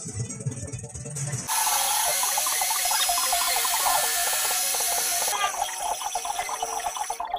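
Small metal lathe running, spinning a threaded aluminium workpiece in its chuck, with a steady whine and a dense gear rattle. It comes in suddenly about a second and a half in, after a low rumble, and its sound shifts a little before the end.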